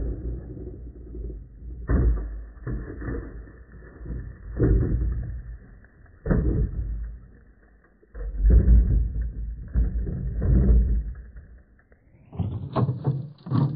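A plastic toy truck tumbling and rolling over on a grassy, sandy slope, played back slowed down, so it sounds deep and muffled: irregular thumps and rumbles, with sharp knocks about two, six and eight seconds in.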